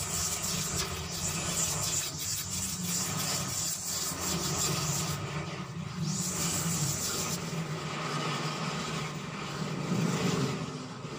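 Xenon CDGT 720 cordless grass trimmer with a circular blade running steadily and cutting grass, with motorcycle traffic passing on a road. A hissy high part of the sound drops away for a moment about five seconds in and fades again a couple of seconds later.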